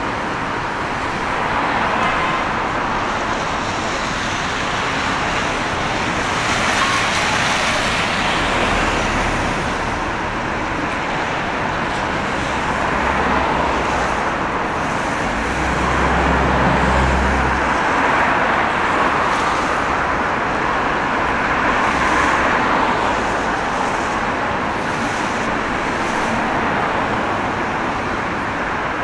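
Steady hiss of rain and tyres on a wet city street with cars going by. A vehicle's low engine rumble swells and passes about halfway through.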